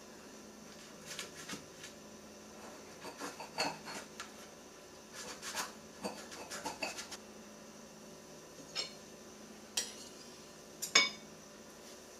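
Metal knife and pie server scraping and clinking against the pie tin and a glass plate as a slice of pie is cut and lifted out: scattered light scrapes and taps, with a sharp clink near the end that is the loudest.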